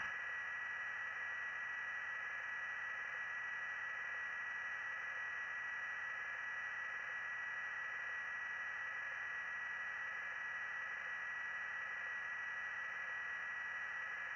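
Steady radio static on an open police radio channel: an even hiss with a constant high-pitched whine and no voice.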